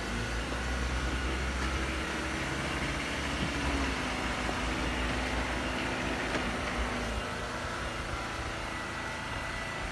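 Small generator (genset) engine running steadily: a constant low drone with a hum underneath that weakens about seven seconds in.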